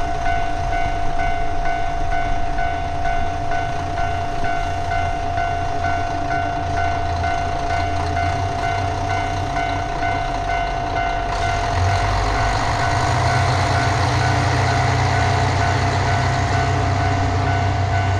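Japanese level-crossing warning bell ringing steadily with its repeating electronic chime while a diesel train rumbles over the crossing. The train's rumble and rail noise grow louder about twelve seconds in.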